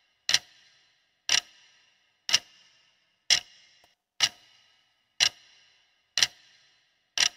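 Quiz countdown timer ticking: a clock-like tick once a second, eight ticks, each with a short ringing tail.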